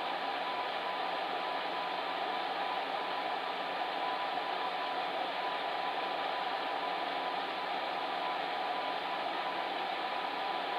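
Electric fan heater running with a steady, even whoosh of blown air and a faint constant hum.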